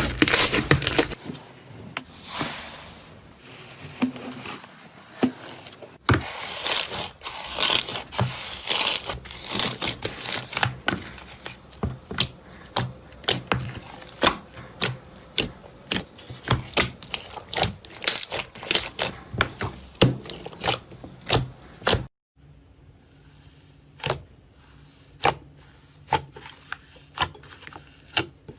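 Slime being squeezed, pressed and poked by hand: a run of sharp sticky clicks, pops and crackles, with the texture changing abruptly a few times.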